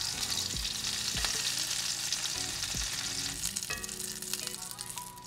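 Breaded chicken cutlets sizzling as they shallow-fry in oil in a cast-iron skillet, with a few knocks of metal tongs against the pan as they are turned. The sizzle eases off in the last second or two.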